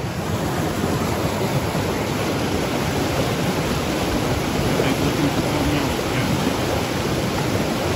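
Fast mountain stream rushing steadily over boulders and small rapids.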